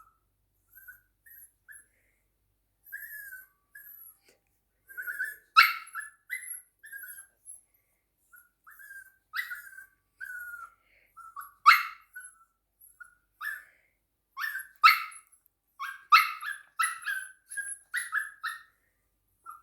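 A dog whining and whimpering in short high-pitched calls, broken by several sharp, loud yelps, which come thicker near the end.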